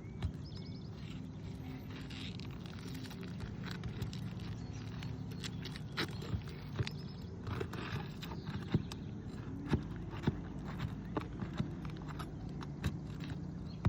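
Sharp clicks and knocks of hand tools working nails loose from under asphalt roof shingles, coming thickest in the second half, over a steady low hum.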